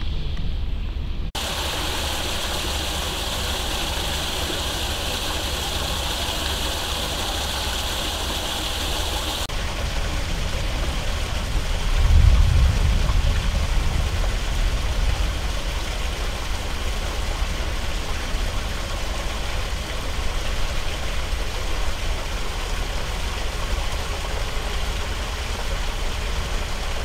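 Heavy rain falling on floodwater, a steady hiss of drops splashing on the water's surface, over a low steady rumble. The sound changes abruptly about a second in and again near ten seconds, and the rumble swells for a couple of seconds about twelve seconds in.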